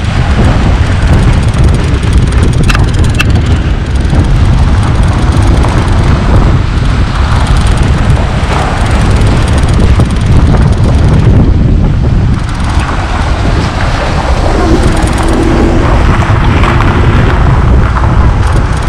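Car driving slowly over a rough dirt road: steady low road and engine rumble mixed with wind buffeting the microphone, with a couple of brief knocks about three seconds in.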